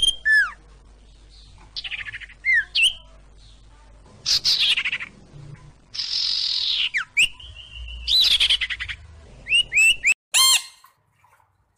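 Common iora calling: a run of separate calls, whistled slurs, buzzy trills and short chirps, with pauses between them.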